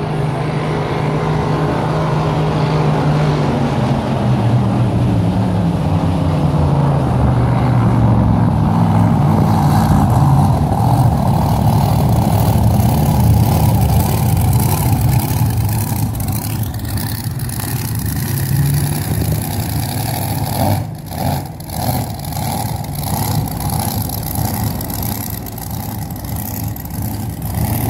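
Supercharged, alcohol-burning circuit race boat's engine running hard at speed. Its pitch drops over the first several seconds as the boat goes by, then carries on steadily and grows a little fainter in the second half.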